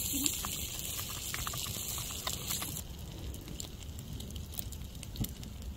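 A spoon stirring food in a foil MRE pouch, the pouch crinkling, then a campfire crackling with scattered small pops.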